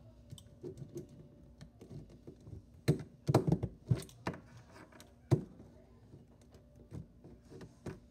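Irregular clicks, taps and knocks of hands cutting the cable off a computer mouse, with a cluster of louder knocks about three to four seconds in and another single knock just after five seconds.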